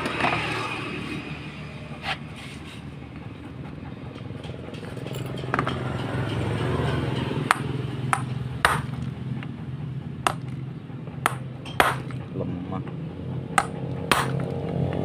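Sharp metallic pings and clicks, about a dozen at irregular intervals and most of them in the second half, as pliers grip and slip on metal inside the valve-guide bore of an aluminium motorcycle cylinder head.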